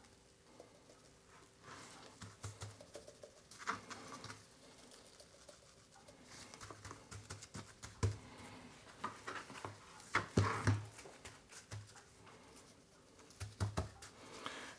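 Spice rub sprinkled from a shaker onto a slab of raw beef flat ribs and pressed in by gloved hands on a plastic cutting board: quiet, irregular pattering and light taps, with a few dull thumps in the middle and before the end.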